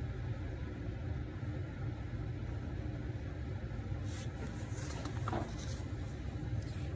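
Steady low room hum, with the soft rustle of a printed paper page being turned and smoothed flat about four to six seconds in.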